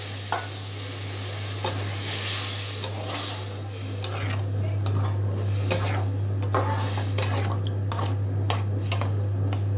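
Brinjal and tomato curry sizzling and hissing in a wide metal pan just after water has been poured onto the hot masala, while a slotted metal spatula stirs it. The hiss is strongest in the first few seconds; after that the spatula's scraping and clicking against the pan comes through in repeated strokes.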